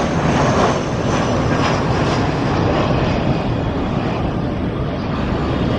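Airbus A321neo jet airliner on final approach with gear down, its engines giving a steady noise as it passes overhead.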